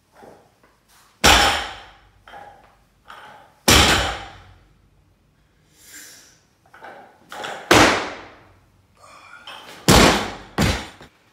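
A loaded barbell with bumper plates dropped onto a wooden lifting platform again and again: five heavy slams, each dying away over about a second, with lighter knocks and clanks between.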